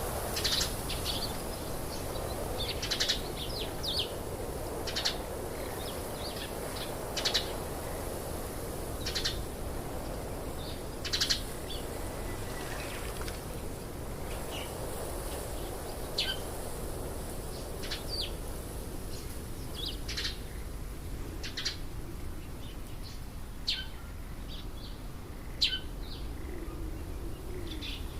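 Birds chirping: short, sharp calls every second or two over a steady low background rumble.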